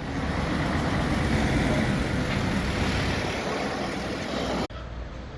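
An engine running nearby, a steady rumble with a low hum under a wash of noise, cutting off abruptly near the end.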